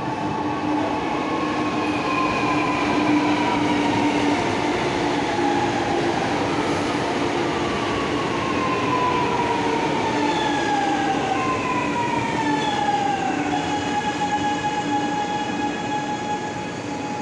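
Chennai Metro electric train running along the platform: a loud steady rumble of wheels on rail, with the motors' whine sliding down in pitch several times over it.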